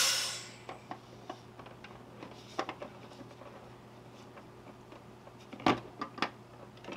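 SodaStream soda maker venting excess carbon dioxide with a loud hiss that dies away within about half a second after carbonating a bottle of water. Then come scattered light clicks and knocks, with two sharper knocks near the end.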